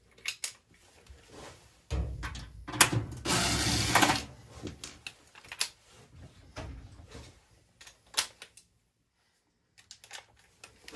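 Hand tools being handled: scattered sharp clicks and knocks, with a denser clatter for about two seconds near the start.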